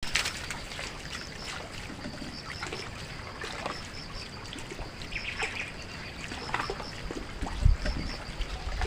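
Outdoor ambience: a high chirp repeating in short notes, with scattered calls and clicks over a faint trickling hiss. Low rumbling thumps come in near the end.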